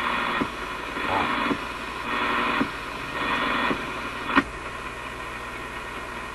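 Static hiss from an RCA A25 vacuum-tube radio's speaker with no station tuned in. The hiss jumps up and down in level at each of about five clicks as the push buttons are worked, and the sharpest click comes about four and a half seconds in.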